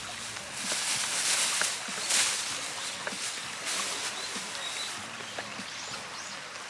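Small birds chirping in short upward-sweeping notes, mostly in the second half, over outdoor noise that surges in a few rustling bursts during the first few seconds.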